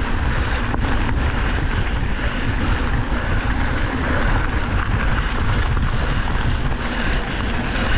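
Wind rushing over the microphone of a mountain bike rider's camera at racing speed, a steady low rumble with small clicks and rattles from the bike over the trail.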